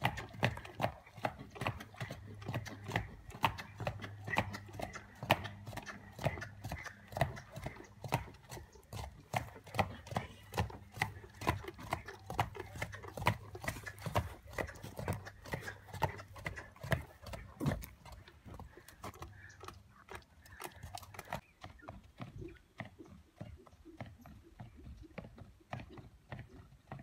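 A horse's hooves striking a dirt arena in a steady trotting rhythm, about two to three footfalls a second. About three-quarters of the way through, the footfalls turn softer and duller.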